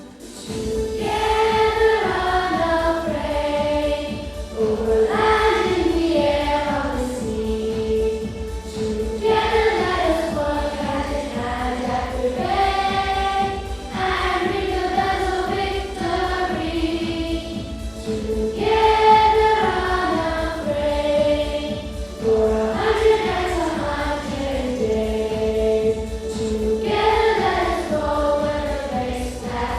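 A school song sung in chorus by many voices over instrumental accompaniment, in phrases that often fall in pitch, with a steady low beat underneath.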